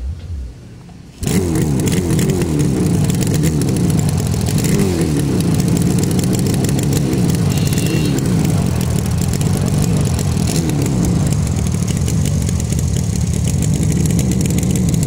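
Rajdoot RD 350's two-stroke twin engine running loud through its twin exhausts, the engine speed rising and falling again and again as it is revved. The first second is quieter, and the engine comes in suddenly about a second in.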